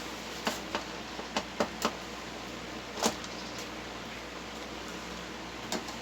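A few light clicks and taps of handling over steady room noise: several in the first two seconds, a sharper one about three seconds in, and a pair near the end.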